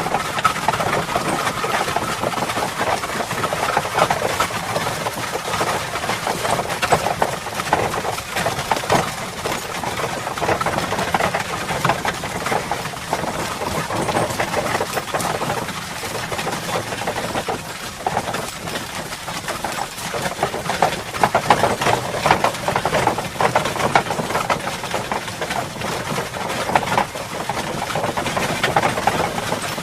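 Horse-drawn cart on the move: a continuous, dense clatter and rattle of the cart and the horse going along at a steady pace.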